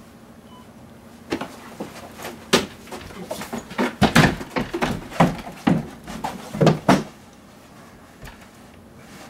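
A scuffle: a rapid, irregular run of knocks, thuds and shuffling bumps from about a second in until about seven seconds, loudest in the last couple of seconds, as one person grapples with and carries off another.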